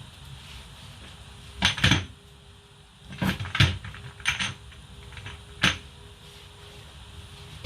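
Kitchen clatter: several sharp clacks and knocks of containers and utensils being handled, coming in short clusters, over a faint steady hum.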